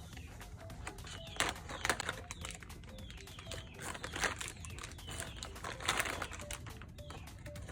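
Crunchy bites and chewing of a strawberry snack: a few sharp, irregular crunches over soft background music.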